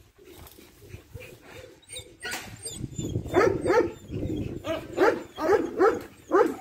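A dog barking over and over, starting about two seconds in, at roughly two barks a second.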